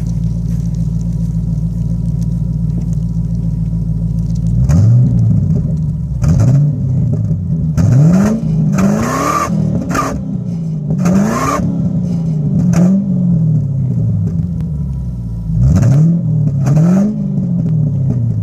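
Ford 4.6-litre V8 exhaust through MagFlow performance mufflers: a steady idle, then about seven quick throttle blips from about four and a half seconds in, each rev rising and falling back to idle.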